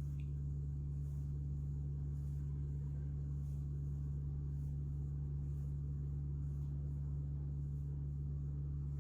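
A steady low hum at an even level, with no distinct cracks or pops standing out.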